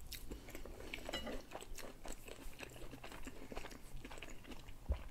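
Close-miked mouth sounds of two people eating rassolnik, a Russian pickle soup, from wooden spoons: soft chewing with many small wet clicks and smacks, and a sip from a spoon at the start.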